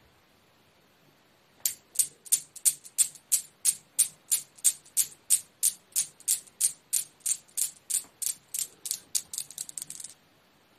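Steel balls of a homemade Newton's cradle clacking against each other: a sharp metallic click about three to four times a second, starting about a second and a half in. The clicks come quicker and a little fainter near the end before stopping.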